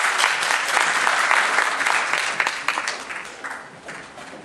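Applause from a crowd, many hands clapping, which thins out and dies away over the last second or two.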